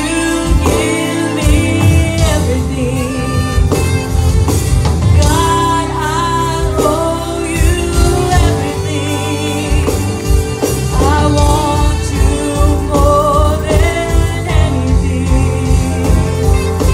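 A woman singing a gospel worship song with vibrato into a handheld microphone, amplified over musical accompaniment with steady bass and a regular beat.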